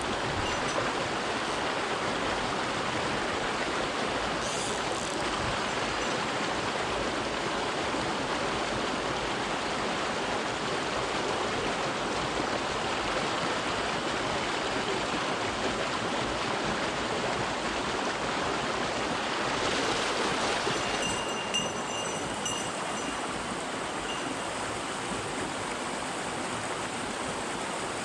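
Small mountain stream rushing over rocks: a steady noise of running water. After about two thirds of the way through, the high hiss eases a little and a few faint, short high-pitched tones sound over the water.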